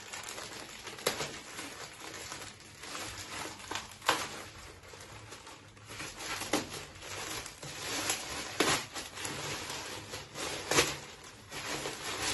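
Plastic mailing bag crinkling and rustling as it is handled and worked at with a cutter, with a handful of sharper crackles, the loudest near the end.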